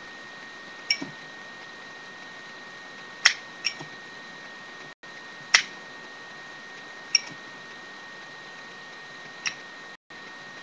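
Zippo lighter clicking as its metal lid is flicked open and snapped shut: about six separate sharp clicks, some with a short metallic ring, over a steady faint high hum.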